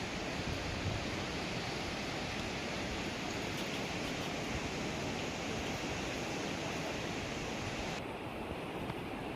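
Steady wash of sea surf on a beach, mixed with wind. The higher hiss drops away suddenly about eight seconds in.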